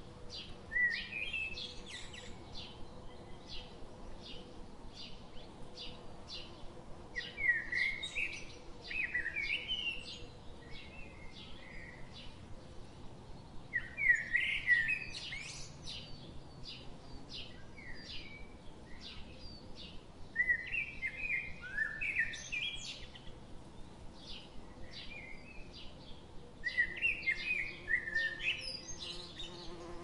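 Forest birds singing: short bursts of warbling song every few seconds over a steady run of short high chirps. A faint honeybee buzz hums underneath at the start and again near the end.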